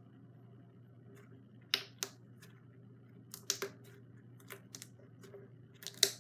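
Fluffy butter slime being squeezed and stretched by hand, giving scattered sharp clicks and pops, the loudest near the end.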